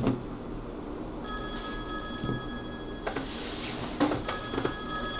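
Mobile phone ringtone ringing twice, each ring a steady chord of high tones lasting about a second and a half to two seconds, with a pause of about a second between. A thump right at the start is the loudest moment.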